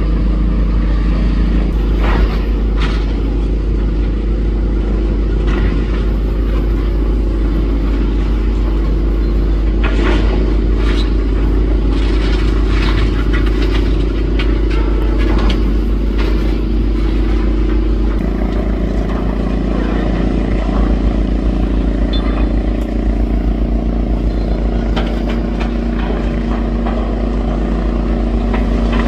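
Demolition machine's diesel engine running steadily under load, with scattered clanks and crunches of debris as the structure is pulled at. The engine note steps up about two-thirds of the way through.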